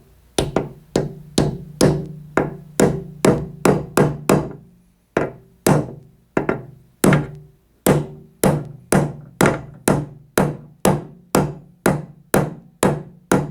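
Small hammer striking steadily, about two blows a second, to drive a new bearing into a Case 224 mower deck spindle housing; each blow is a sharp metallic knock with a short ring, with a brief pause around five to seven seconds in.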